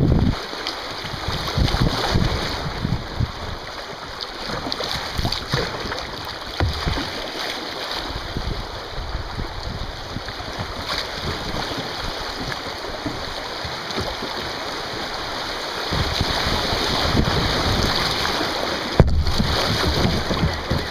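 River water rushing and splashing through a shallow rapid around a kayak, louder near the end, with wind gusting on the microphone now and then.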